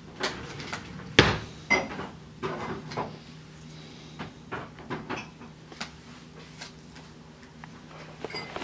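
Irregular household clatter: short clicks and knocks, the loudest about a second in, over a steady low hum.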